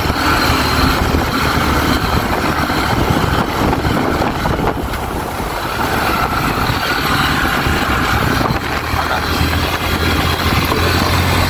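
Motorcycle engine running steadily under load while climbing a steep mountain road, with wind noise over it.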